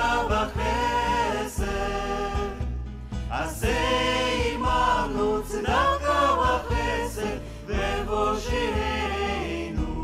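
Music with singing voices: sung phrases that rise and fall, each held for about a second, over a steady low accompaniment.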